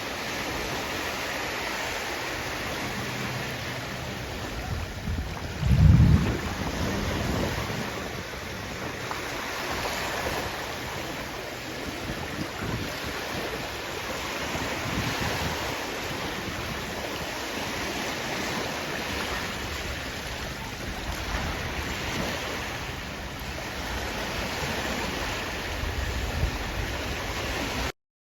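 Sea waves washing in, with steady surf noise and wind buffeting the microphone. A loud low rumble of wind on the microphone comes about six seconds in, and the sound cuts off suddenly near the end.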